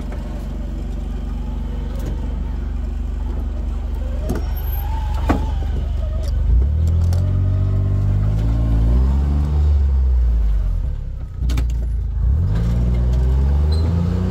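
Side-by-side UTV engine idling steadily, then revving up and easing off in several rising swells as the machine drives off a flatbed trailer, with a few sharp clicks along the way.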